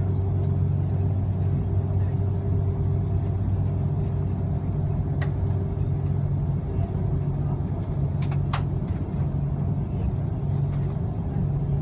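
Cabin noise inside an Airbus A330-300 taxiing: a steady low drone with a hum, from the engines at taxi power. A few faint clicks come about five and eight and a half seconds in.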